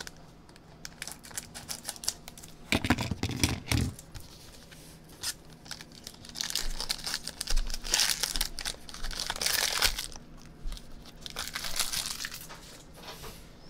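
Foil wrapper of a Panini Spectra football card pack being torn open and crinkled in several bursts, with clicks of the cards being handled.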